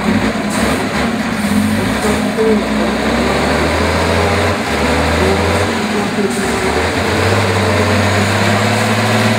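Diesel engine of a six-wheel-drive trial truck working hard under heavy load up a steep muddy slope, its note shifting several times as the driver works the throttle.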